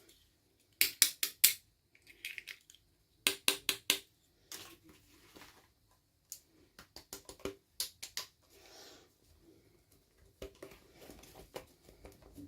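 Small miniature toy pieces being handled and set down: quick runs of four or five sharp clicks and taps, with soft rustling of packaging between them.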